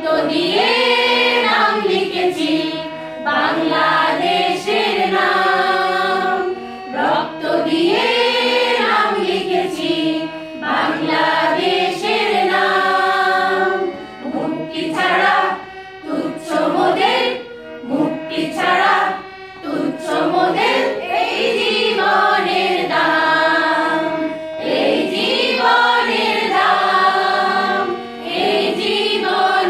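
A group of women singing a Bengali song together in unison, phrase by phrase, with short breaks between the lines.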